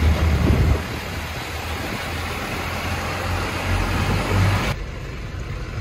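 A truck being driven at speed: steady engine rumble and road noise heard from inside the cab, heaviest in the first second. Near the end the sound drops off abruptly to a quieter, duller engine hum.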